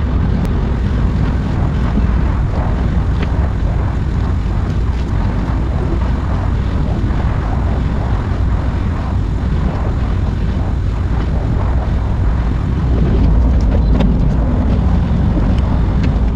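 Excavator diesel engine running steadily under load, a little louder near the end, then cutting off abruptly.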